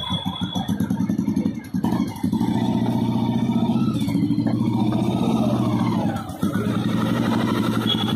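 Restored 1973 Royal Enfield Bullet's single-cylinder four-stroke engine running with its steady beat. About two seconds in, after a brief dip, it gets louder as the bike is revved and pulled away.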